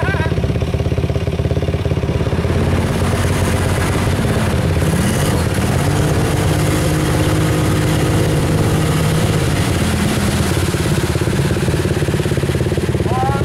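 Utility ATV engine revving up and down while its wheels spin in deep mud, the pitch rising and falling between about three and ten seconds in as the quad is worked loose and drives on through the mud.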